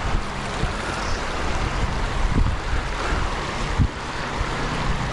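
Creek water rushing steadily over a shallow gravel riffle, with wind buffeting the microphone in low rumbles and a few thumps.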